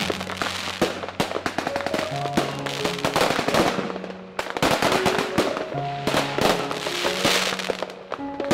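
Fireworks crackling and bursting in dense swells of crackle, over background music with a slow melody of held notes.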